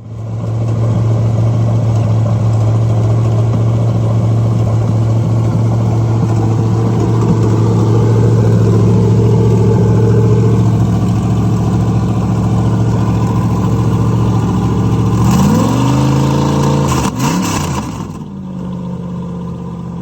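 Big-block V8 marine engine running steadily at idle. About three-quarters of the way in it is revved up twice in quick succession, then settles back to a quieter, lower idle.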